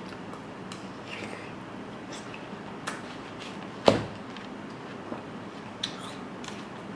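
Light tabletop clicks and taps from handling food and utensils, with one sharper knock about four seconds in.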